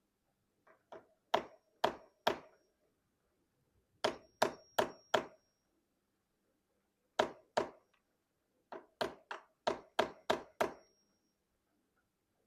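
Hammer blows in quick runs of two to seven strikes, about nineteen in all, several of them leaving a short high-pitched metallic ring.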